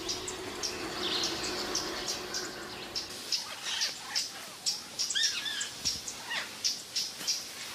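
Tropical forest ambience: short high chirping calls repeating about three times a second, with a few bird chirps about five seconds in. A faint low hum fades out about three seconds in.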